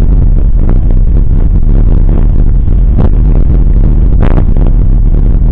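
Mountain bike rolling over a wet gravel road, heard through a fork-mounted camera: a steady heavy rumble of wind on the microphone with tyre crunch and frame rattle, and two sharper clattering jolts, about three seconds in and just after four seconds.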